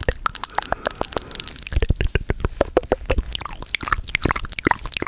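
ASMR trigger sounds right at the microphone: a fast, irregular stream of sharp wet clicks and crackles.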